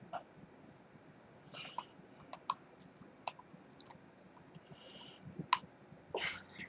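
Dog licking and biting at a hard-candy lollipop: faint, scattered clicks of teeth against the candy and its stick, with two brief wet licking sounds.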